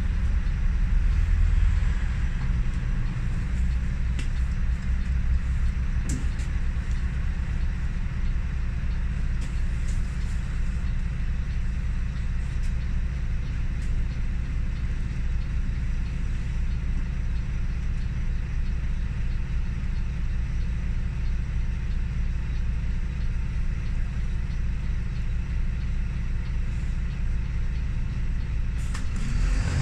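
City bus engine idling, heard from inside the bus as a steady low rumble while the bus stands still. It starts to pick up right at the end as the bus pulls away.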